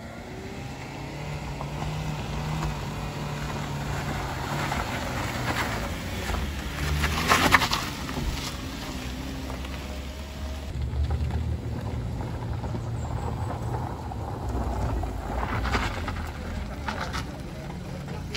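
Small Toyota MPV engines labouring up a steep, loose-gravel incline, running under load with a low steady hum. A loud burst of tyres grinding over the gravel comes about seven seconds in, with shorter grinding bursts near the end.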